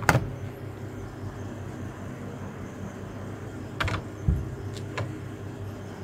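A sharp plastic click as the fridge's icebox compartment door is snapped shut, then a few softer knocks and clicks of handling near four and five seconds in, over a steady low hum.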